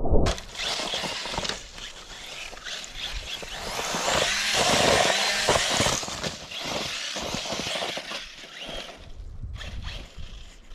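Brushless RC truck driving over loose volcanic gravel: an electric motor whine mixed with the hiss and scatter of tyres throwing grit, swelling loudest around the middle. It opens with a short thump.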